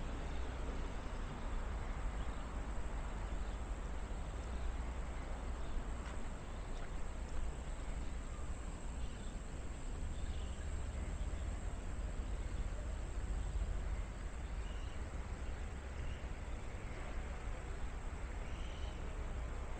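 Insects droning steadily in the trees: a continuous high, even buzz. Under it runs a low steady rumble, with a few faint short bird chirps here and there.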